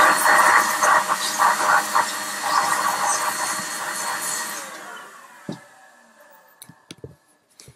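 Handheld electric air blower running with a loud hiss and steady whine, then switched off and spinning down over about two seconds, its whine falling in pitch. A few light clicks follow as it is handled.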